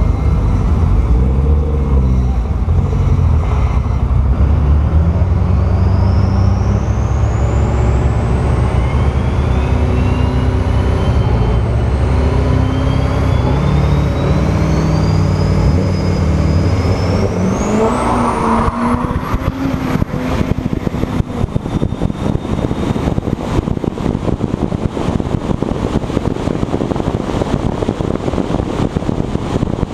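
Built Duramax diesel pickup engine held and revved at the drag strip starting line, with turbo whistles gliding upward. After about eighteen seconds it launches at full throttle: the turbo whine climbs steeply and a loud rushing noise takes over as the truck runs down the strip.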